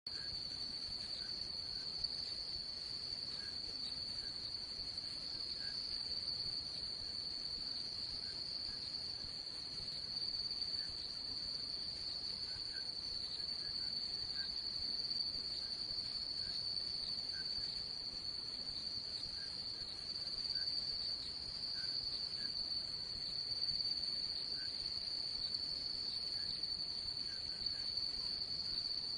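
A night chorus of crickets: a steady, high-pitched trill that never breaks, with faint, lower chirps dotted irregularly through it.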